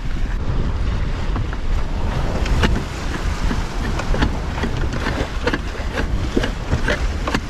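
Wind buffeting the microphone over the rush of the sea around a sailing yacht under way, with scattered light clicks and knocks.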